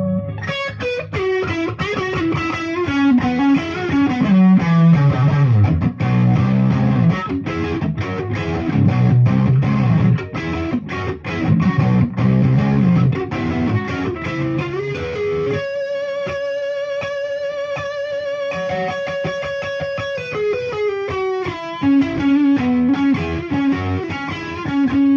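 Electric guitar played through a Dumble-style 100-watt SSS amplifier: lead lines of quick single notes, with one long note held with vibrato from about sixteen to twenty seconds in.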